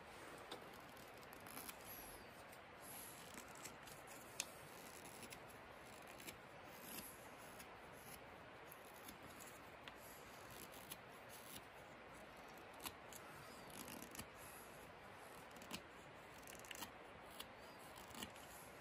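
Morakniv carbon-steel carving knife taking small detail cuts on a dry pear-wood fork: faint, irregular clicks and scrapes of the blade shaving the wood, over a steady low hiss.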